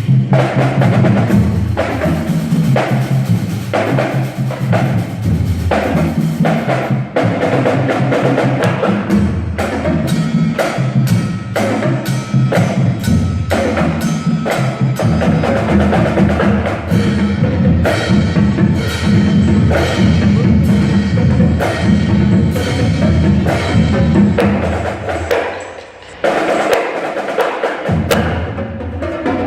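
Marching band playing: drums and other percussion beating a steady rhythm over low pitched notes, with a short lull near the end before the band comes back in.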